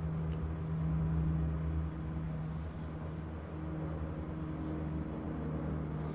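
Steady low mechanical hum, like a motor or engine running, with one faint click about a third of a second in.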